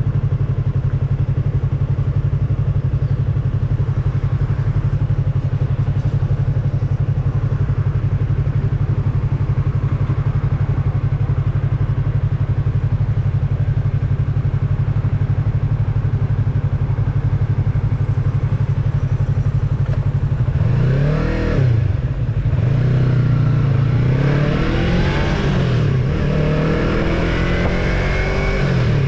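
Yamaha MT-03's parallel-twin engine running at a steady speed, then, about twenty seconds in, revving up and dropping back several times as the bike accelerates through the gears.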